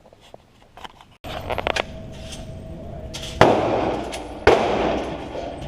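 Hi-Point C9 9mm pistol firing: two shots about a second apart, each trailing off slowly, after a quiet first second and a few small clicks.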